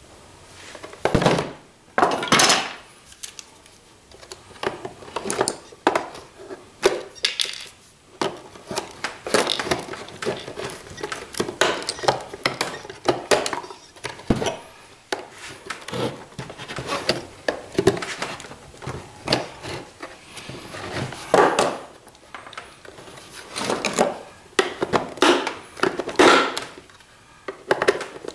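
Hand tools clicking, scraping and knocking against a CPAP machine's plastic housing and the wooden workbench as the case is taken apart with pliers and a screwdriver: a long run of irregular knocks and clicks, loudest a second or two in and again near the end.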